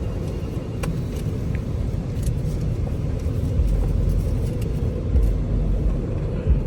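Car on the road heard from inside the cabin: a steady low rumble of engine and tyre noise.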